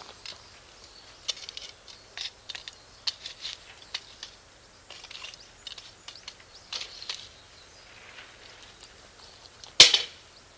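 Charcoal and wood fire crackling, with irregular sharp pops as the Iwate cut charcoal bursts. One much louder pop comes near the end.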